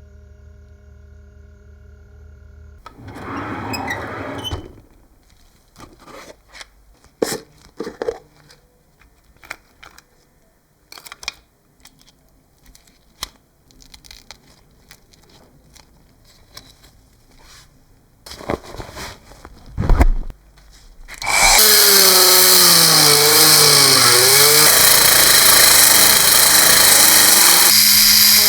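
Workshop work sounds: scattered knocks and clatter, then a power tool starts about three-quarters of the way through and runs loudly and steadily, its pitch wavering as it works.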